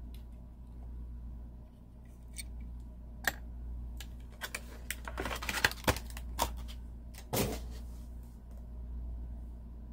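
Hands handling a small 1:64 diecast car and its packaging: scattered light clicks and taps with some rustling, busiest in a cluster around the middle. Under it runs a low steady hum.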